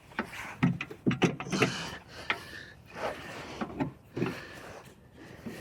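Floor jack being pumped under the car's subframe: a string of irregular mechanical clanks and creaks as the jack handle is worked and the car rises.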